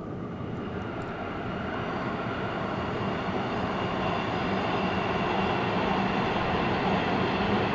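Metro train approaching on an elevated track: a steady rumble with a hum that grows gradually louder.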